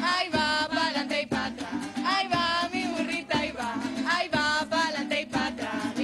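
Live Venezuelan folk music of a Diversión Oriental: voices singing a melody over strummed small guitars, with a steady beat.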